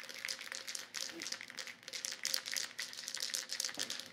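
Irregular crinkling and rustling handling noise, with light rattles.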